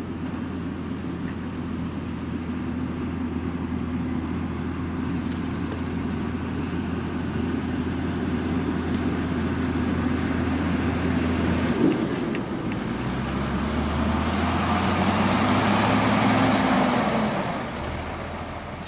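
Farm tractor engine running steadily under a broad mechanical noise. About twelve seconds in, the engine note drops and a louder rushing noise builds, then eases off near the end.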